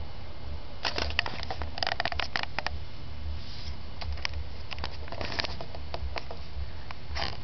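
Irregular bursts of light crackling taps and scratches as a cat and dog paw at a large moth on a wooden floor, over a steady low hum.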